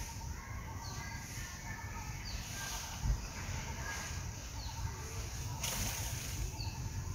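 Outdoor tree-canopy ambience: small birds chirping in short high calls every second or two over a steady low rumble, with a single thump about three seconds in and a brief crackling rustle near the end.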